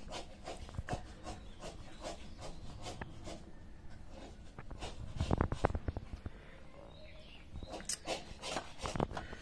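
Handling noise: rubbing and scattered light clicks, louder about five to six seconds in. Near the end come a few sharper knocks as a metal pot lid is handled.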